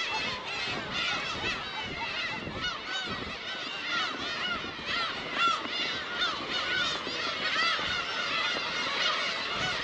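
A colony of black-tailed gulls calling, many cries overlapping without a break.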